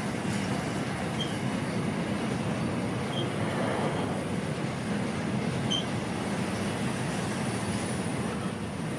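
Double-stacked container wagons of a freight train rolling past, a steady noise of steel wheels running on the rails. A few very short, faint high chirps sit on top.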